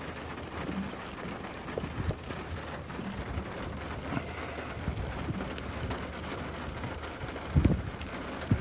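Rain starting to fall: scattered drops ticking against a steady hiss, with one louder low thump near the end.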